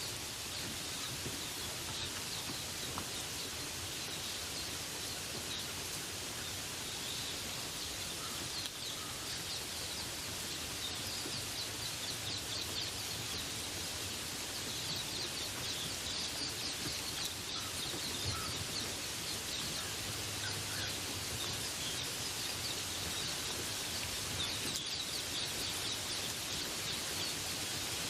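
Steady rain falling, with small birds chirping repeatedly in the background through most of the stretch.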